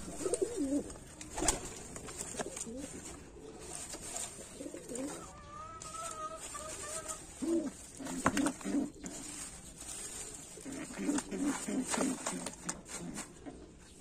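Racing pigeons cooing: a run of low, repeated coos from birds in a wooden nest box. A few sharp knocks come in between, the loudest about a second and a half in.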